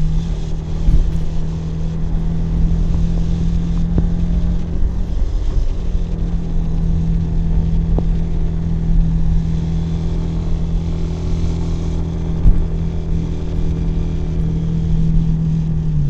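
Kawasaki W175's air-cooled single-cylinder four-stroke engine and exhaust running at a steady cruise under way. The engine note dips briefly about five seconds in, then holds steady again.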